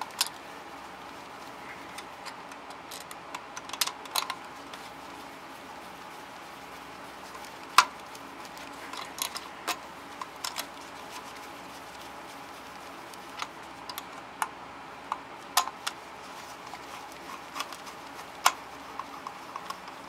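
Screwdriver driving the mounting screws of a duplex receptacle into a metal electrical box: scattered small metallic clicks and scrapes of the tool on the screws and box, with the sharpest click about eight seconds in.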